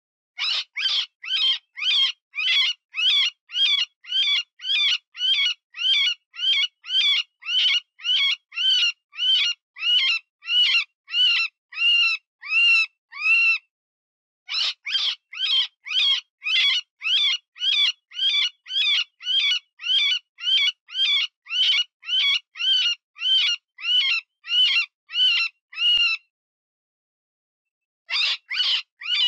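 Cottontail rabbit distress call, the wounded-rabbit squeal used to lure predators: high-pitched wavering squeals repeated about two or three times a second. The run breaks off briefly about halfway through, stops near the end for a couple of seconds, then starts again.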